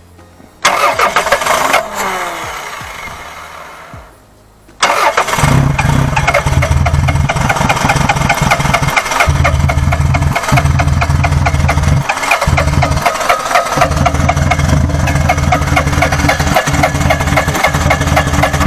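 Toyota 4S-FE inline-four petrol engine cranked by its starter motor, turning over without catching. There is a short crank about half a second in that dies away, then a long steady crank from about five seconds on.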